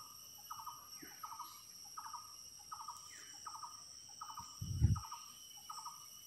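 A bird calling over and over in short, even chirps, about three every two seconds. A dull thump comes about four and a half seconds in.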